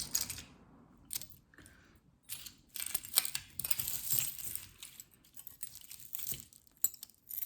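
Small metal jewelry pieces clinking and jingling as they are handled. After a quiet first second comes an irregular run of light metallic clatter.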